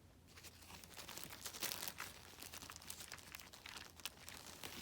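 Thin plastic packaging crinkling and rustling as a small toy accessory is handled, a dense run of little crackles and ticks that gets louder in the middle.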